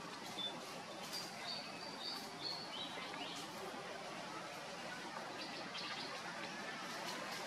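Birds chirping: short, high whistled notes and a couple of quick falling chirps in the first three seconds, over a steady outdoor hiss with a few faint clicks.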